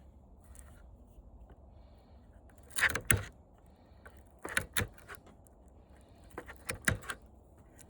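Scattered clicks, knocks and clinks from handling the hard parts of a dismantled flat-screen TV, in small clusters: a loud pair about three seconds in, more at about four and a half seconds and again near seven seconds.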